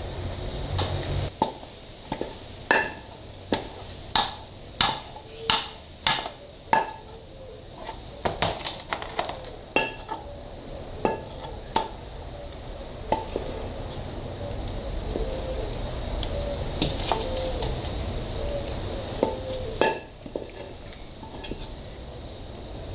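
A spoon scraping and knocking against a metal pan as thick peanut milk fudge is scraped out into a metal baking tray. Sharp clinks come at an even pace of a little over one a second at first, then grow irregular, with softer scraping between them.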